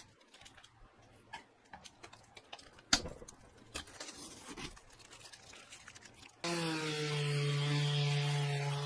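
Masking tape being peeled off by hand, faint crackling and a few light clicks. About six seconds in, a Bosch GEX 125-1 AE random orbital sander with a Kärcher wet/dry vacuum on its dust port starts abruptly and runs with a steady hum, sanding the fiberglass.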